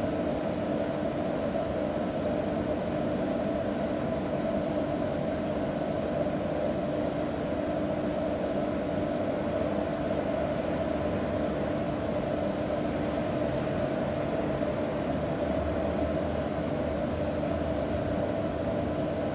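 Rooftop mushroom-cap exhaust ventilation fans running with a steady, unchanging mechanical drone and a constant hum tone.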